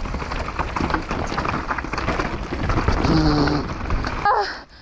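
Downhill mountain bike rolling fast over a loose, rocky trail: a steady rumble of tyres on stones and gravel with many clattering knocks and rattles from the bike. A short steady tone sounds about three seconds in, and the noise stops suddenly shortly before the end.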